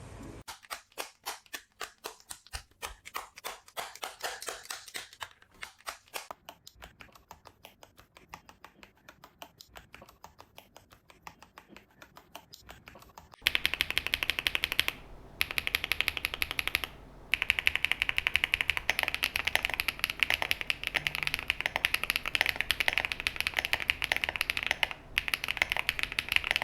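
Akko x HMX Cilantro tactile mechanical switches typed on a QK75 keyboard. Separate keystrokes, about three or four a second, come first. About halfway in the typing turns faster and louder, and it pauses briefly twice.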